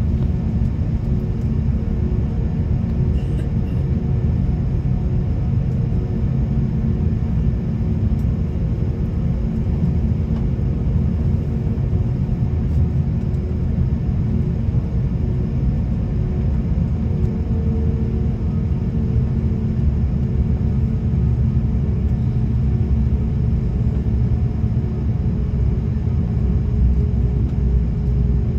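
Steady cabin drone of an Airbus A330-300 with its Rolls-Royce Trent 700 engines running at constant thrust: a deep, even rumble with a few steady hums above it.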